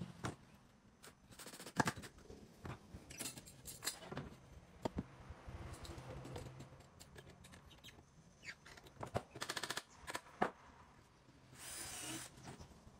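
Hands handling melamine cabinet panels and a metal corner clamp: scattered light clicks and knocks, a short rattle, and a brief scrape near the end.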